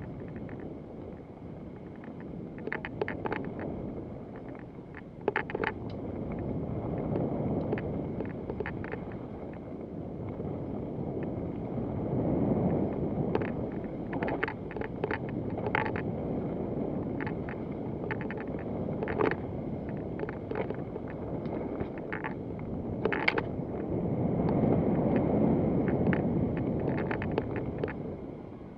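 Wind buffeting the microphone in swelling waves during a bike ride, with scattered clicks and rattles from the bicycle jolting over rough ground.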